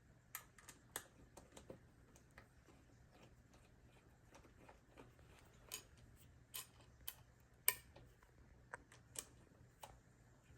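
Faint, irregular clicks and light taps of metal bike parts and tools being handled while a stem is fitted onto a mountain bike fork's steer tube, the sharpest click about three-quarters of the way through.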